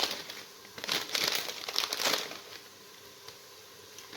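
Plastic packet of whole spices crinkling and rustling as it is handled and opened, in irregular bursts that die down about halfway through.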